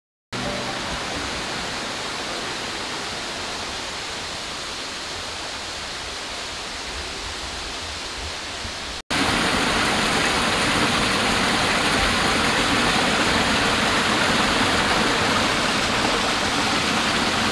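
Steady rush of water flowing over rocks in a stream near a waterfall. About nine seconds in, a sudden cut jumps to a louder, closer stretch of the same rushing water.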